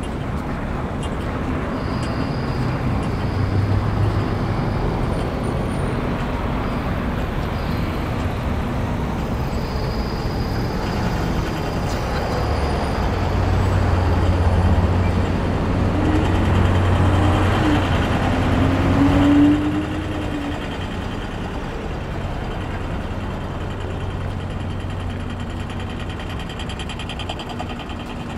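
City street traffic, with a heavy vehicle's low engine hum building about halfway through and stopping abruptly about two-thirds of the way in.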